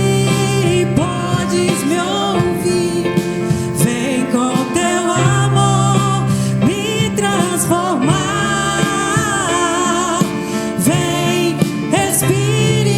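Live band playing a slow Christian worship song, with a lead voice singing long, wavering lines over the accompaniment.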